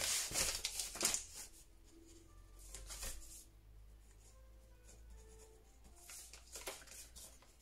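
A sheet of paper rustles as it is handled for about the first second and a half. Then comes the faint, soft sound of a gel pen writing on the paper.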